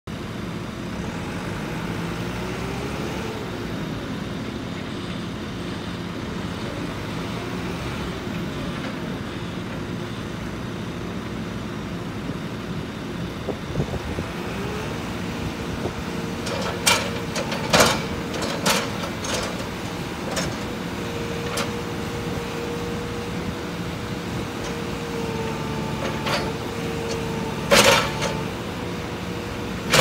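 JCB 3CX SiteMaster backhoe loader's diesel engine running steadily while the front loader is worked, its hydraulic whine rising and falling in pitch as the arm and bucket move. From about halfway through come several sharp knocks, the loudest near the end.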